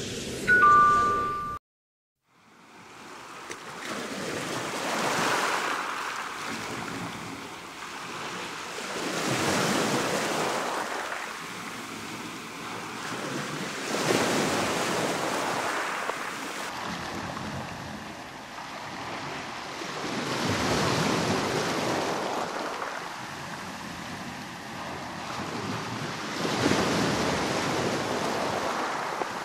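A brief electronic tone of two steady notes cuts off abruptly, then after a second of silence ocean surf rises and falls in slow swells, one every five or six seconds.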